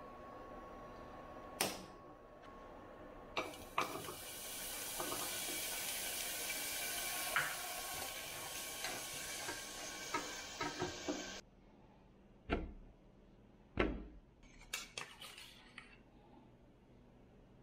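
Eggs sizzling in a hot stainless steel saucepan, with knocks and scrapes of a utensil against the pan. The sizzle starts a few seconds in and cuts off suddenly about two-thirds of the way through. Then come two dull thumps and a run of light clinks from a fork and a metal pan over a plate.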